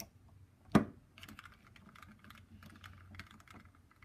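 Small plastic parts of an audiometer headphone earpiece being handled during reassembly: one sharp knock a little under a second in, then a run of light, irregular clicks and rattles.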